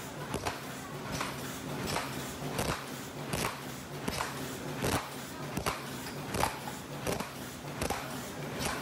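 Paper cup forming machine running at about 80 cups a minute: a steady mechanical hum with a sharp clack roughly every three-quarters of a second, one per cup formed.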